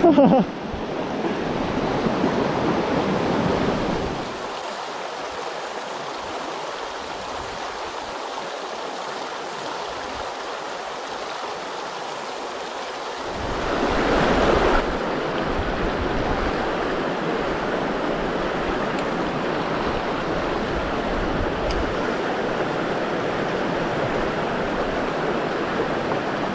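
Rushing mountain stream: a steady water noise that drops in level about four seconds in, swells briefly about halfway through, then runs steady again.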